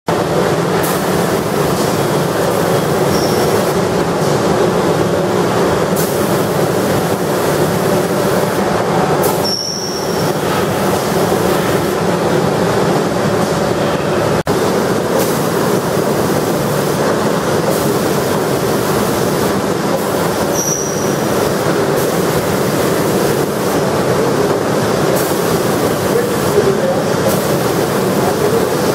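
Steady loud rushing noise of a spray-painting booth: the booth's air extraction and the spray gun's hiss. A short high squeak comes three times, and the rush dips briefly twice.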